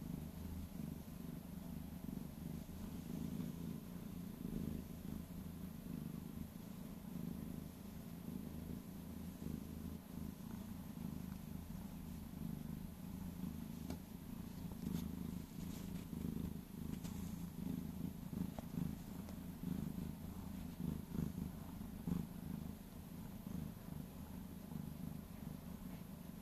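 Orange tabby cat purring steadily, a low rumble with a fast pulse, as it is stroked: a sign of contentment.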